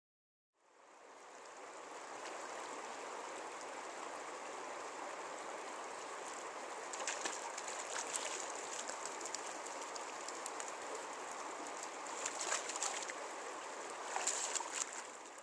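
Small rocky mountain stream rushing steadily, fading in within the first second, with splashes from a wader's legs stepping through the water at several points, the loudest near the end.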